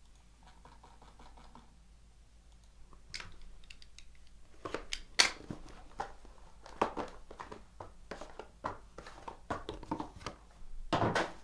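A sealed trading-card box and its plastic wrapping being torn open by hand. After a quiet start there is an irregular run of crinkling and tearing, loudest near the end.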